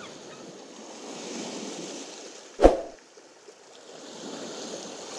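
Surf: waves washing in and fading away as a rushing sound, with one sharp, deep thump about two and a half seconds in, the loudest thing heard.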